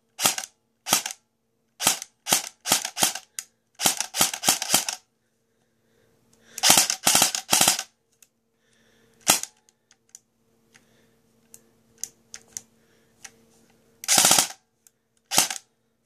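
G&P M4 airsoft electric gun firing with its freshly reshimmed and relubed gearbox: a string of single semi-auto shots, then several rapid full-auto bursts, the longest about a second and a half. The gun had one lockup during the test, which the owner puts down to an angle of engagement he has not fixed.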